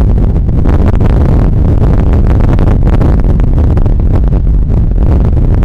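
Strong storm wind buffeting the microphone in a loud, steady rumble, over the noise of heavy surf breaking on the beach.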